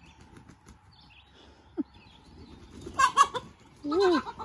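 Chickens running loose on grass, squawking and clucking: a harsh, loud squawk about three seconds in, then a short call that rises and falls in pitch.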